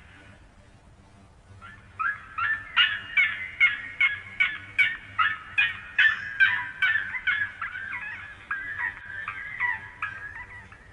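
A bird calling in a long series of quick repeated notes, about three a second, that turn into a more warbling run near the end.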